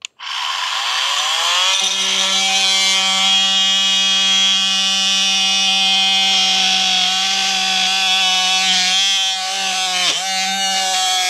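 Milwaukee M18 cordless oscillating multi-tool spinning up with a rising whine over about two seconds, then running steadily as a wide high-carbon-steel blade plunge-cuts into dry wood along the grain. The pitch sags briefly twice near the end as the blade loads in the cut.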